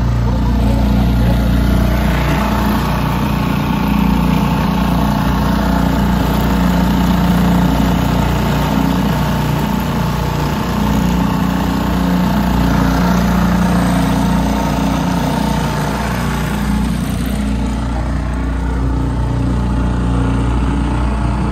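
Small motorboat's engine running steadily, heard from on board the boat.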